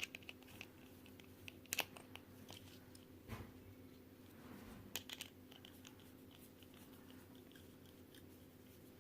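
Faint, scattered clicks of Square-1 puzzle pieces being handled and fitted together, a few separate ticks over a low steady hum.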